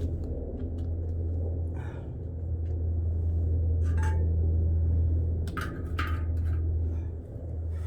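Steady low rumble with scattered light clinks and scrapes of metal, most of them between four and six seconds in, as an oiled cast-iron pot lid is wiped and handled over a fire.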